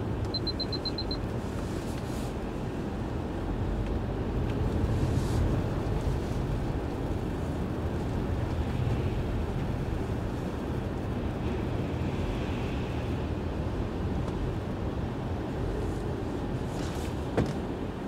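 Steady low rumble of strong wind and a car's road noise. A quick run of about seven high electronic beeps at the start, and a single sharp click near the end.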